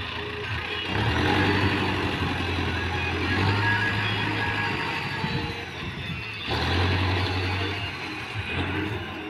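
Mahindra Arjun Novo tractor's diesel engine running under load while working its front loader. The revs pick up about a second in, ease off a little after six seconds, then rise again.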